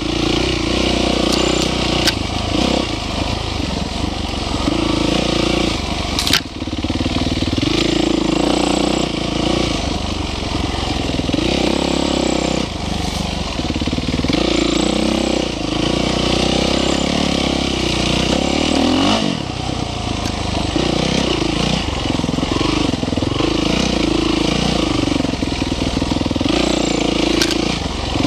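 Engine of an off-road vehicle riding a dirt trail, its pitch rising and falling as the throttle opens and closes, with one sharp knock about six seconds in.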